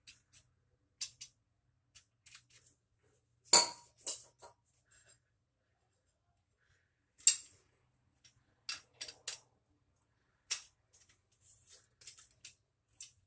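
Scattered metallic clicks and clinks from handling a gas dryer's gas valve assembly and its sheet-metal mounting bracket. There are two louder sharp knocks, about three and a half and seven seconds in.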